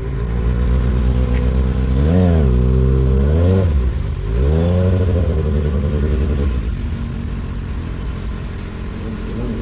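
Kawasaki Ninja ZX-6R inline-four engine revved three times in quick succession, its pitch climbing and falling with each blip of the throttle, then settling back to a steady idle.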